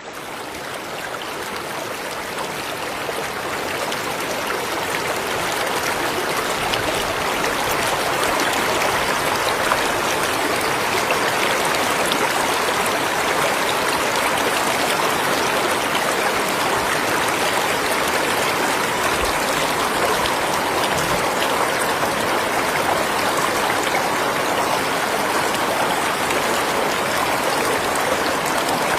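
River water rushing and splashing steadily. It fades in over the first few seconds, then holds at a constant level.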